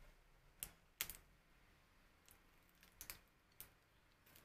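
A few faint, sharp, irregularly spaced crunches of thin, crisp chocolate-coated biscuit sticks being chewed with the mouth closed.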